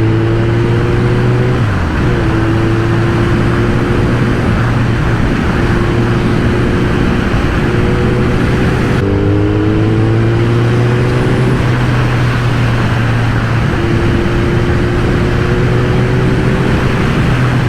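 Motorcycle engine running at a steady cruise while riding, its note holding with a few small shifts in pitch, over a constant rushing noise.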